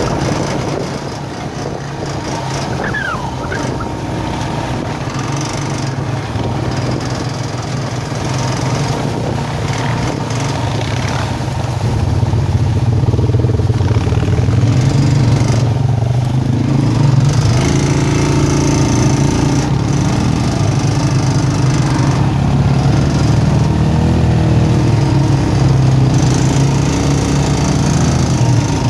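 Four-wheeler (ATV) engine running while riding, a steady drone that gets louder about twelve seconds in, its pitch rising and falling with the throttle in the second half.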